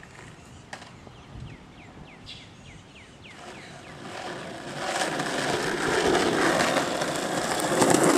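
Skateboard wheels rolling over pavement, growing steadily louder from about halfway through as the board approaches. Before that there is a faint series of short falling chirps.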